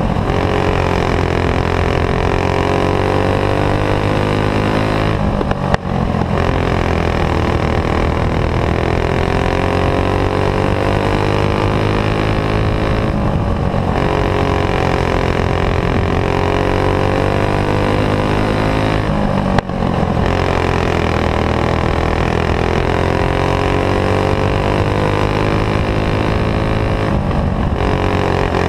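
Racing kart's clone single-cylinder four-stroke engine running hard at high revs under racing load, heard from onboard. Its pitch sags and climbs back every six to eight seconds, with a brief drop each time.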